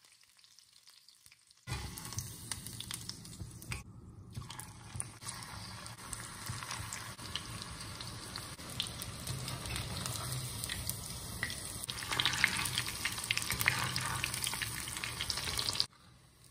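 Hot oil sizzling and crackling around battered chicken pakora and green chillies deep-frying in a cast-iron kadai. It starts about two seconds in, is loudest in the last few seconds, and cuts off suddenly near the end.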